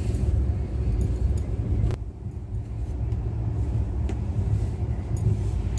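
Steady low rumble of a moving passenger train, heard from inside the coach, with one sharp click about two seconds in.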